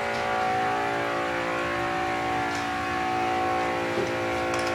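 Power wheelchair drive motors geared 21:1 whining steadily as the robot drives and turns, with a light click about four seconds in.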